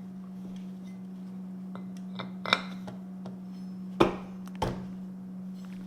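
Three sharp metallic knocks from alternator parts being handled and worked on: one about two and a half seconds in, the loudest about four seconds in, and a lighter one just after it. A steady low hum runs underneath.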